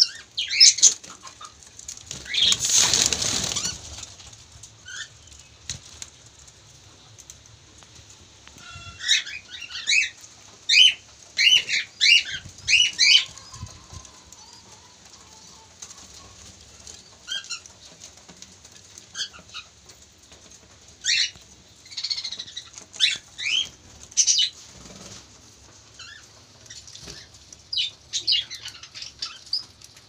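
Caged budgerigars chirping in short calls that come in bunches, busiest around the middle of the clip. A burst of wing flapping comes a couple of seconds in.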